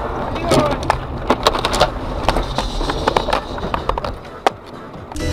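Car skidding off a snowy road and ploughing into deep roadside snow, heard from inside the cabin. A rapid run of knocks and crunches comes over the engine rumble as the car bounces through the snow. The noise eases off near the end, with one sharp knock about four and a half seconds in.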